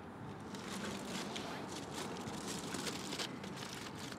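Aluminium foil wrapper crinkling in a run of small, irregular crackles as a wrapped takeaway meal is handled and opened, over steady outdoor background hiss.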